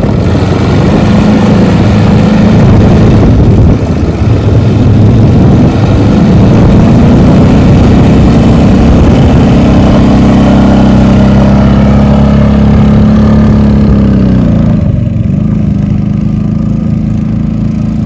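ATV engine running loud, its pitch rising and then dropping away about fifteen seconds in as the quad slows.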